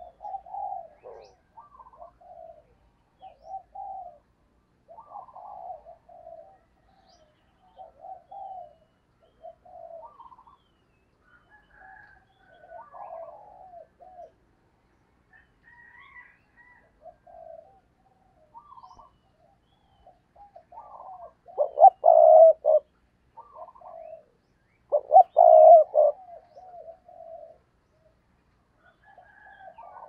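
Spotted dove cooing: a decoy bird's repeated short, soft coo phrases, the urging 'gù' calls used to provoke wild doves, with two louder, stuttering bouts of cooing about 22 and 25 seconds in.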